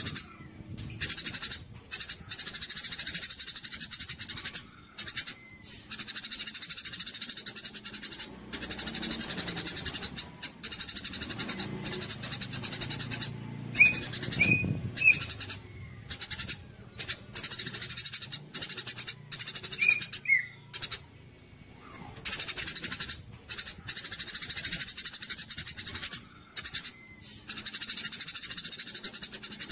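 A small songbird singing a rapid, high-pitched chattering song in bouts of several seconds with short pauses between them. A few separate lower chirps come about halfway through.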